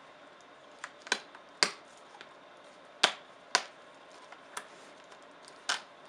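Plastic retaining clips of an Alienware M18x R2 laptop's front panel, above the keyboard, popping loose as the panel is pried up by hand. About eight sharp clicks and snaps come at uneven intervals.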